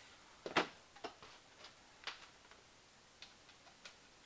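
Light clicks and taps at irregular intervals, about eight in four seconds, the sharpest one about half a second in, like small hard objects being handled and set down.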